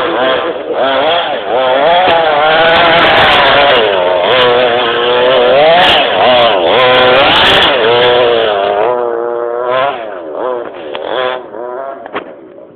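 Small two-stroke petrol engine of a large-scale FG radio-controlled monster truck, revving up and down over and over under the throttle. About nine seconds in it drops to a quieter, lower note, with a few sharp clicks near the end.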